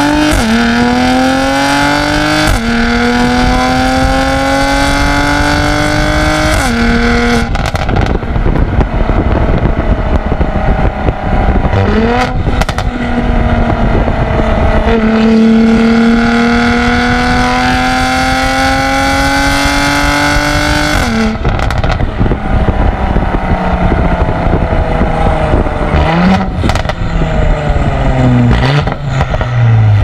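Mercedes-AMG GLC43's twin-turbo V6 heard at the tailpipes of its Fi valvetronic cat-back exhaust with catless downpipes while driving. The engine note climbs steadily under acceleration and drops at each upshift. In stretches off the throttle it falls away into road noise with a few short sharp cracks, and near the end it winds down as the car slows.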